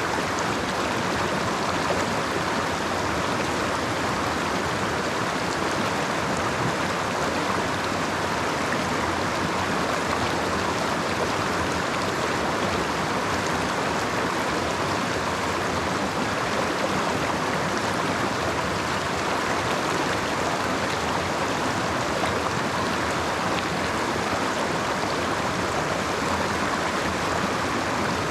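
Creek water flowing, a steady even rush with no breaks.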